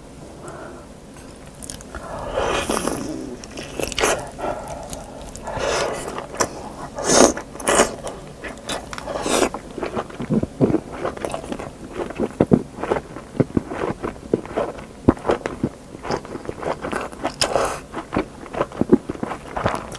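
Close-miked eating: meat bitten and pulled off a stewed rib bone and chewed with wet mouth sounds. Longer slurpy, tearing sounds come in the first half, then a quick run of sharp smacking clicks.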